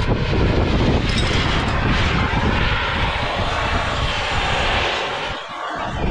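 Oxy-fuel heating torch flame burning with a steady roaring hiss as it is played around a wheel bearing, warming it evenly so the bearing swells and drops off the spindle. The roar eases for a moment near the end.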